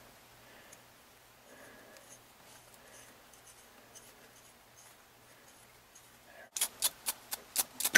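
Faint scratching of a small hand-turned thread tap in a pin vise, being backed out of a hole in a hardened steel knife liner. Near the end comes a rapid run of sharp clicks.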